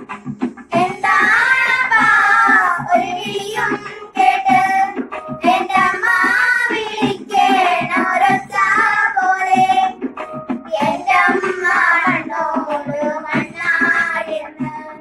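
Girls singing a Malayalam folk song (nadanpattu), phrase after phrase, with short breaks between phrases.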